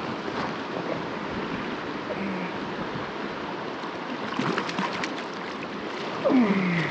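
Steady rush of river water flowing over rocks, with a few brief sharper splashy sounds about four and a half seconds in and a short falling tone near the end.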